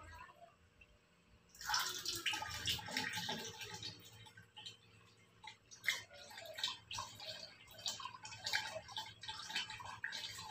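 Thin stream of water from a water ionizer's outlet hose pouring into a large empty-sounding plastic water jug, splashing and trickling. It starts about a second and a half in and runs on unevenly, with one sharper splash near six seconds.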